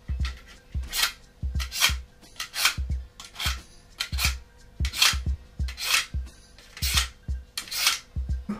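Kitchen knife drawn over and over through a handheld knife sharpener: a rasping scrape about twice a second, with a light knock as each stroke lands.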